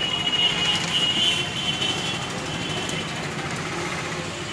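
A steady mechanical hum with a thin high whine, the whine loudest in the first second and a half.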